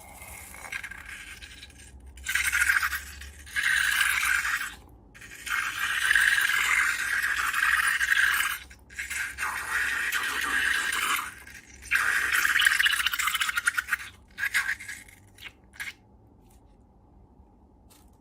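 Slime being squeezed and worked by hand in a series of noisy strokes, each one to three seconds long, followed by a few short clicks.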